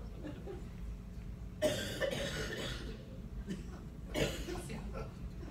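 A person coughing twice: a longer bout about a second and a half in, and a shorter cough about four seconds in.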